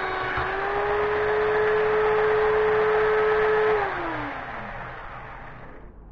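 Electric belt sander, clamped upside down as a bench sander, running at a steady whine. About four seconds in it is switched off and the motor winds down, the whine falling in pitch and fading out.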